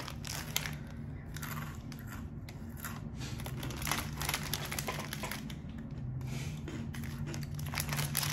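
A snack packet crinkling over and over as it is handled, over a steady low hum.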